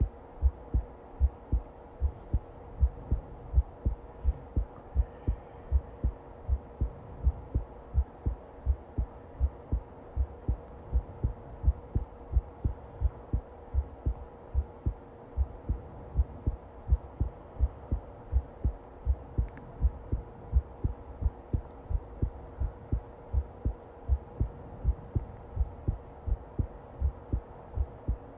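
Heartbeat: regular low thumps, about two a second, over a steady faint hum.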